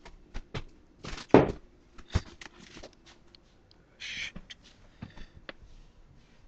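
Scattered knocks, taps and clunks of objects being handled and set down, the loudest a little over a second in and again about two seconds in, with a short rustle around four seconds in.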